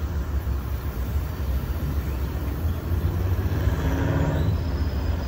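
Steady low rumble of a passing train, with a brief swell of higher-pitched noise about four seconds in.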